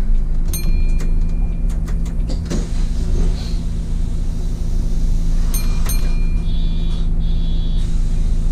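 City bus engine idling with a steady low hum and rumble, heard from the driver's cab. Twice, about half a second in and again about five and a half seconds in, a sharp click is followed by a high held electronic tone lasting a second or so.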